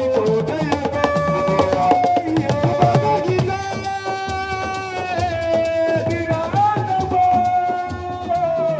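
Music: hand drums playing a busy rhythm under long held, sliding melodic notes.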